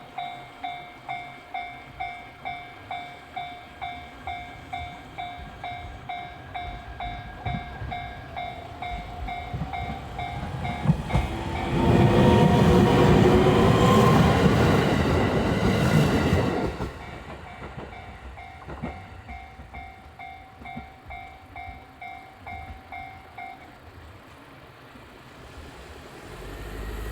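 Japanese level-crossing warning bell ringing at a steady clang about twice a second. Roughly halfway through, a train runs past loudly for about five seconds with a rumble of wheels and motor. The bell stops a few seconds before the end.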